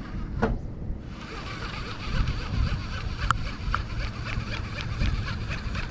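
Wind buffeting the microphone in an open boat: a steady low rumble, joined about a second in by a fainter hiss with a few light clicks.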